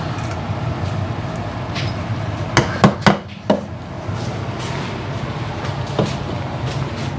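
Claw hammer tapping finishing nails into a wooden beaver-stretching board to tack out a pelt: a quick run of three or four taps in the middle and one more near the end, over a steady low hum.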